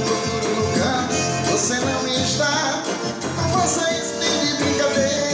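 Forró band playing a love song at a steady dance beat, with a singer continuing the verse over it.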